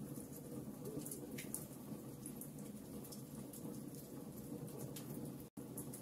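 Wood fire burning in a fireplace: a steady low rush of flames with scattered sharp crackles and pops from the burning logs. The sound cuts out for an instant about five and a half seconds in.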